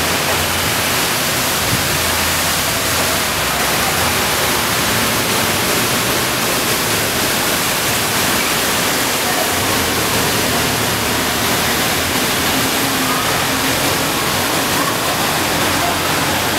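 Heavy downpour: a steady, dense hiss of rain pouring onto trees and a flooded street, with floodwater rushing along the road.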